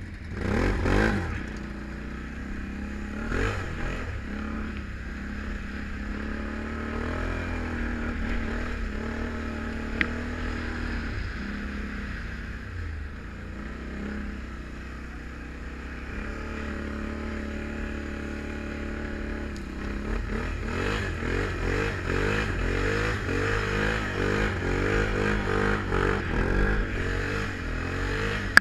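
Can-Am Renegade 1000 ATV's V-twin engine running under way. It revs up quickly about a second in and again a couple of seconds later, then runs more steadily. In the last third it gets louder and its pitch rises and falls rapidly several times a second.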